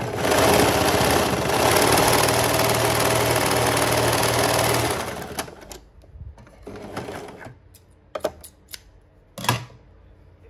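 Serger (overlocker) running at speed as it stitches and trims the edge of brown fabric, then stopping after about five seconds. A few soft clicks and one sharper knock follow near the end.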